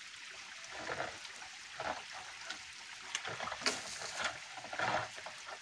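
Water sloshing and splashing in a few irregular short bursts as a hand feels around in water pooled inside a tunnel, over a steady hiss of flowing water.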